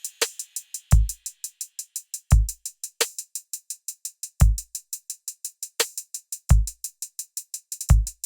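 Hip-hop drum-machine beat with no vocals: fast ticking hi-hats, deep booming kicks at uneven spacing, and a sharper snare-like hit every few seconds.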